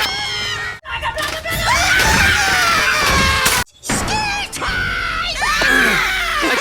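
Stock cartoon 'troll screaming' sound effect: several shrill, wailing voices layered together, their pitches curving and sliding down. It runs in two long stretches with a short break about three and a half seconds in.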